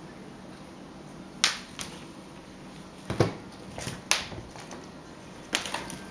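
Sharp, irregular clicks and knocks of a bird toy being batted and knocked about by a pet at play, coming in a few scattered hits and a quick cluster near the end.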